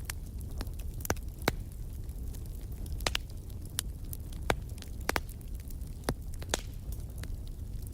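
Wood fire burning in a fireplace: a steady low rumble with sharp crackles and pops of burning logs scattered irregularly, about eight in all.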